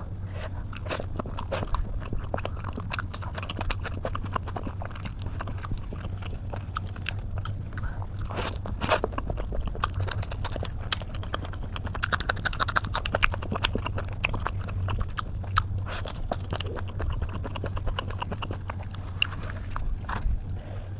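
A person chewing and smacking on food close to the microphone, with many irregular wet clicks, over a steady low hum.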